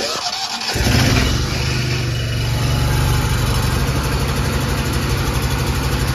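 Small petrol engine with starting trouble catches about a second in and settles into a steady run.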